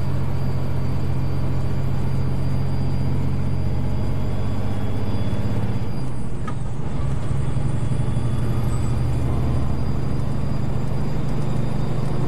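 Vehicle engine running steadily with road noise, heard from inside the cab while driving at moderate speed. The engine note changes about halfway through.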